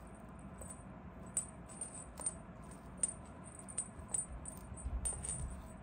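Small bell jingling in short, irregular bursts as a kitten plays with a feather wand toy, with a few light taps on a vinyl floor.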